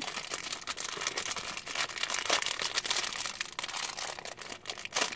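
Plastic candy wrapper crinkling in a dense run of crackles as hands pull it open.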